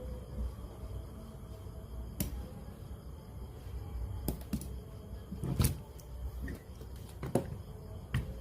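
Scattered sharp clicks and knocks over a low steady hum, about six in all, the loudest a little past the middle: handling noise from work on a radio-cassette player.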